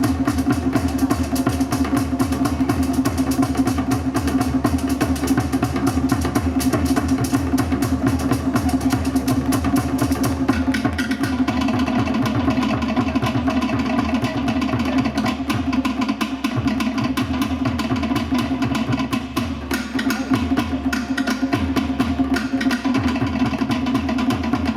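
Fast Tahitian drumming: rapid, even strokes on wooden slit drums over a steady low tone. It stops suddenly at the very end.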